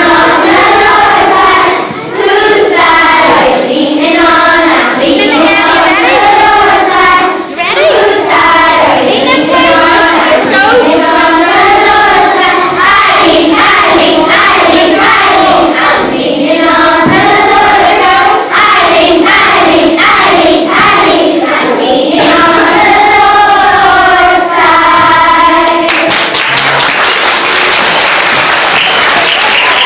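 A group of primary-school children singing a song together. The singing stops near the end and gives way to applause.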